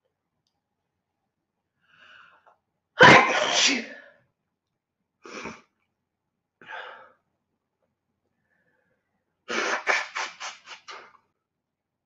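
A woman sneezes loudly once about three seconds in, after a faint lead-in breath. Two short, quieter breathy sounds follow, and near the end comes a quick run of about seven short breathy pulses that fade out.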